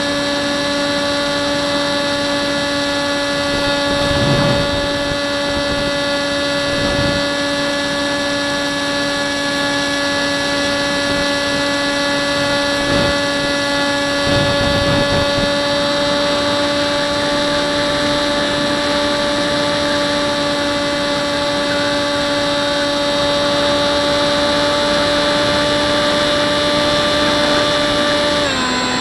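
Hubsan Spyhawk's electric motor and propeller whining steadily at cruise throttle, as heard from the camera on board the plane; the pitch drops near the end as the throttle is eased back. A few brief low rumbles of wind buffeting come through along the way.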